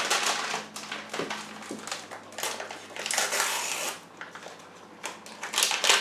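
Paper packet of vanilla pudding powder being handled and torn open: crinkling and rustling in several bursts, with a quieter stretch about four seconds in.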